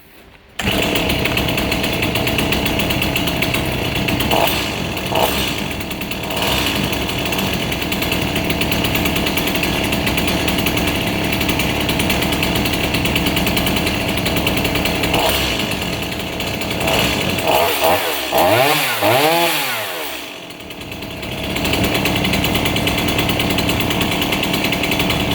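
Two-stroke chainsaw engine starting abruptly and running steadily, its pitch sweeping down and back up a few times about eighteen seconds in before it settles again. It runs now that the loose ground wire to its ignition coil has been tightened, restoring spark.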